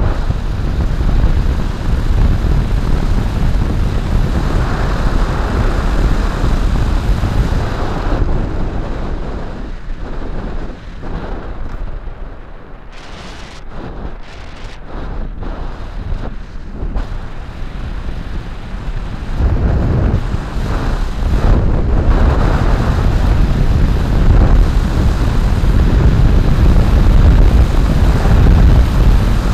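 Wind rushing over the microphone of a moving electric motorcycle, with road noise from the tyres. It eases off through the middle as the bike slows, then builds again and grows loudest near the end as it speeds up.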